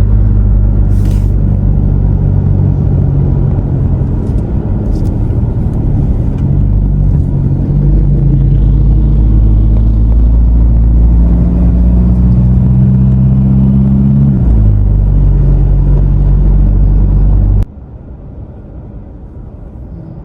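Engine and road rumble heard from inside a moving road vehicle. The engine note shifts in pitch several times as the speed changes. Near the end it drops suddenly to a much quieter rumble.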